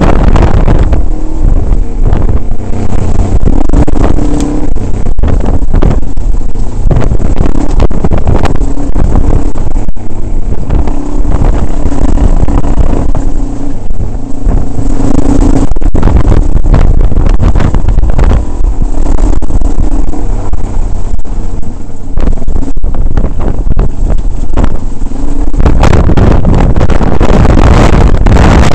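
Motorcycle engine running over a rough gravel dirt track, its pitch rising and falling with the throttle. Heavy wind noise on the microphone and frequent knocks from the bumps run over it.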